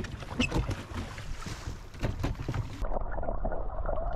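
Water splashing and sloshing with scattered small knocks and clicks. About three seconds in, the sound turns dull and muffled.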